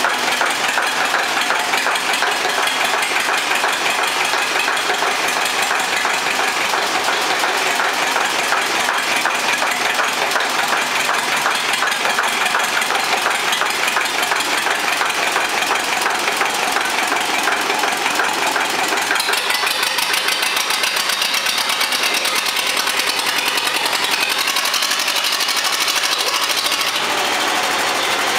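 Zetor 25K tractor's two-cylinder diesel engine running steadily at idle with a fast, even pulsing beat; its sound changes in character about two-thirds of the way through.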